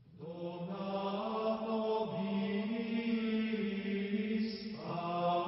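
Background music of slow sung chant, long held notes on a steady voice line, with short breaks about two seconds in and again near the end.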